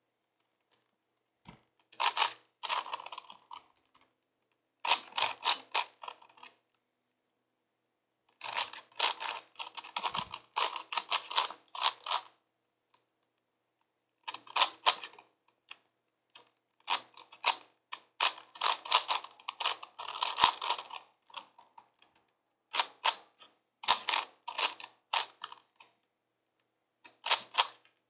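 A 5x5x5 Rubik's cube being turned during a solve: rapid clacking of its plastic layers in bursts of one to four seconds, with pauses of a second or two between them.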